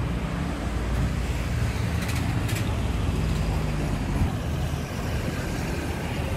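City street traffic: motor scooters and cars passing close by, with a steady low engine rumble.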